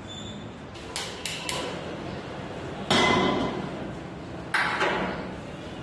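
Metal kitchenware clinking and clanking: three light clinks about a second in, then two louder ringing metallic clangs, the first and loudest near the middle and the second about a second and a half later.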